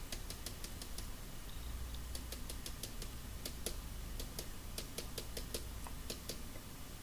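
Faint, quick, irregular light clicks, several a second: a small plastic bottle of powdered sulfur being tapped and shaken to sprinkle small amounts into a paper cup on a scale. A low steady hum sits underneath.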